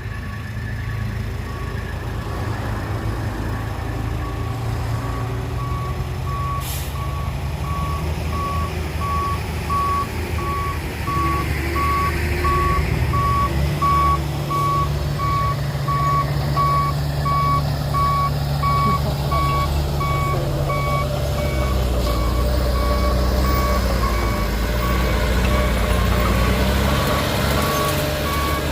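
Reversing alarm of heavy earthmoving machinery beeping steadily, about two beeps a second, over the low running of diesel engines. The engine sound grows louder about a third of the way in, and a fainter higher beep joins about halfway.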